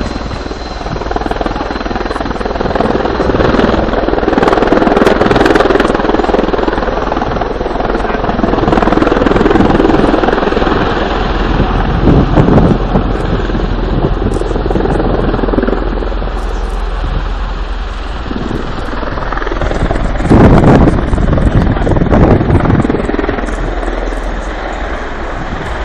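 Bell Boeing CV-22 Osprey tiltrotor flying a low display pass, its proprotor and engine noise swelling and easing several times.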